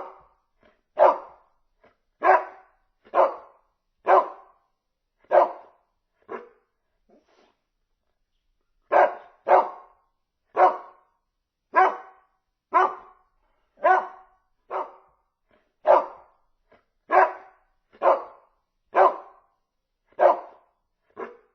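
Dog barking in single sharp barks, about one a second, with a pause of about two seconds about a third of the way through.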